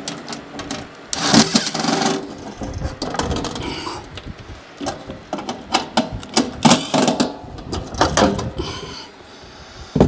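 A cordless drill/driver runs briefly about a second in, followed by a scatter of sharp clicks, knocks and metallic clatter from screws and parts being worked loose inside the sheet-metal cabinet of the air handler's electric heat kit.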